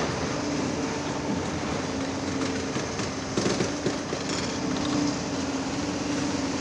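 Heavy diesel construction machinery running steadily, with a short burst of knocks and clatter a little past halfway.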